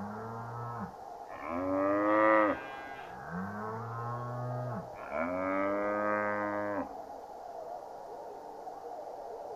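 Cows mooing: four drawn-out moos in turn, a lower one followed by a louder, higher one, twice over.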